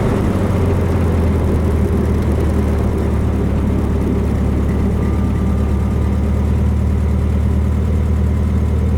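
Freshly built 1776 cc air-cooled VW flat-four engine running at a steady speed while the Beetle drives, heard from inside the cabin.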